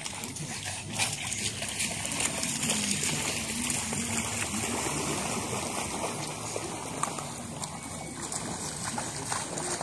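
Floodwater splashing and sloshing, over a steady hiss.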